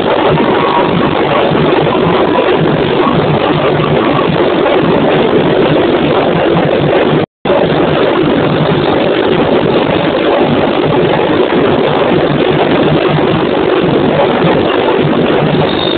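Samba bateria, a drum section playing samba, heard as a loud, dense wall of drumming. The sound cuts out for a split second about seven seconds in.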